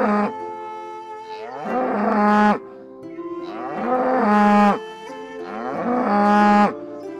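A red-and-white cow mooing: three loud moos about two seconds apart, each rising in pitch, holding, then cutting off sharply, with the end of an earlier moo at the start. Soft flute music plays underneath.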